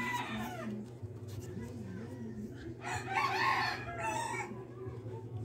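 A rooster crowing twice: once at the start and again, longer, from about three seconds in, over a steady low hum.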